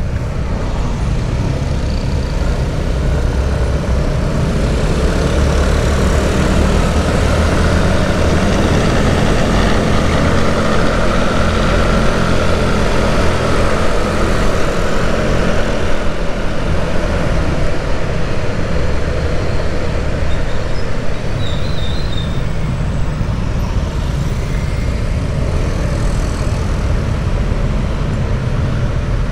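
Motorcycle on the move in town traffic: steady engine and road noise with heavy low rumble, the engine's hum most distinct for a few seconds in the middle.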